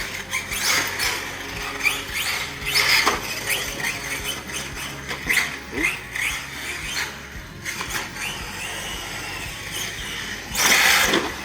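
Traxxas Sledge 6S RC monster truck's brushless electric motor whining up and down in short bursts as the throttle is worked, with a louder rush of noise near the end.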